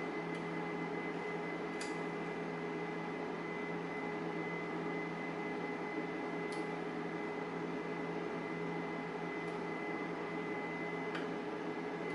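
Cooling fan of a desktop backup power supply running with a steady whir and hum, broken by three faint clicks.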